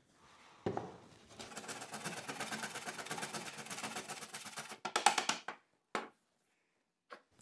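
A wedge of Parmesan grated on a stainless steel box grater: a run of quick, rhythmic rasping strokes, then a few louder strokes and a single knock.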